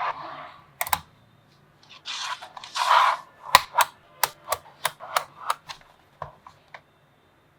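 Small magnetic balls snapping together with sharp clicks: a double click about a second in, then a run of single clicks, roughly three a second, in the second half. Between them come a couple of short rattling swishes.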